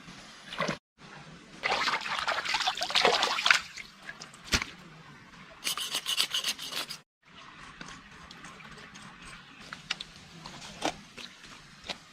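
Rubbing and scraping sounds from hand work, in a few short edited bursts, with a sharp knock in between and scattered light clicks near the end.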